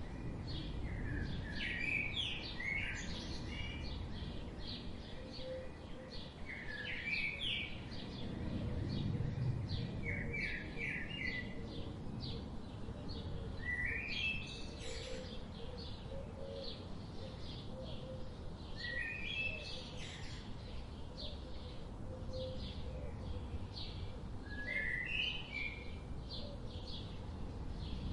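Forest songbirds singing: one bird repeats a short, stepped phrase of about a second every four to five seconds, over fainter, continuous chirping from other birds and a steady low rumble.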